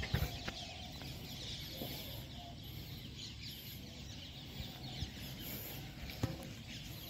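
Birds calling and chirping on and off, with a few light knocks.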